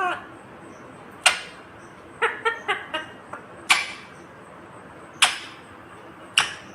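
Indian ringneck parakeet giving four short, sharp screeches a second or so apart, with a quick run of short chattering chirps between the first and second screech.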